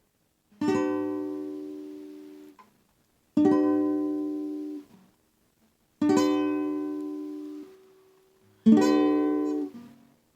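Guitar playing four slow chords, a little under three seconds apart. Each chord is struck and left to ring and fade before it is stopped.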